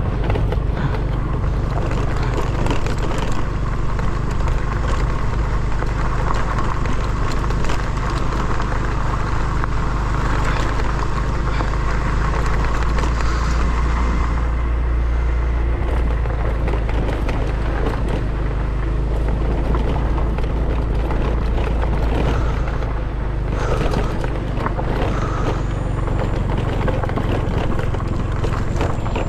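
Small motorcycle engine running steadily while riding a rough forest dirt track, with a constant low rumble and frequent short knocks and rattles as the bike goes over bumps.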